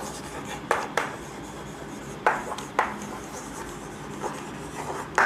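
Chalk writing on a chalkboard: short scratching strokes and taps at irregular intervals as letters are written.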